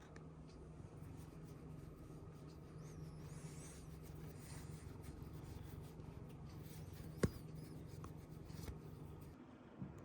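Domestic cat purring, a steady low rumble with rubbing and rustling over it. The purr breaks off briefly near the end, and there is one sharp click about seven seconds in.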